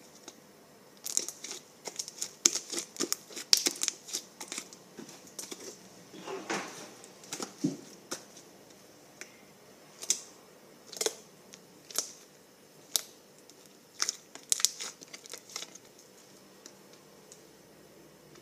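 Fluffy slime made with white glue being stretched and squished by hand, giving irregular sharp crackles and pops, with a quiet spell near the end.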